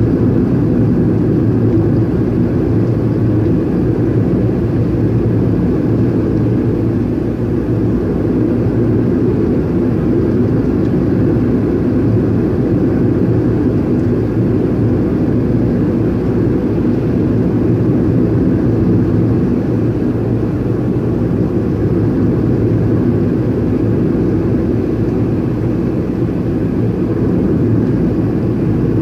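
Car driving at a steady speed, heard from inside the cabin: a continuous low rumble of engine and road noise with no changes.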